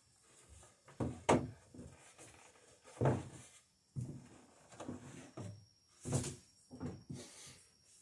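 Irregular wooden knocks and clunks, roughly one every second, from tools and a plank being handled at a wooden workbench.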